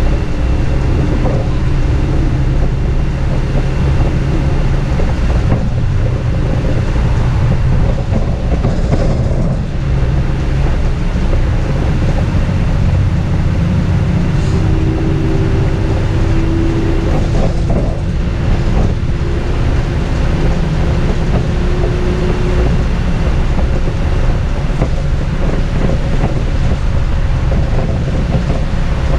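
Steady engine and road rumble inside a moving city bus, with a faint held whine in the middle of the ride.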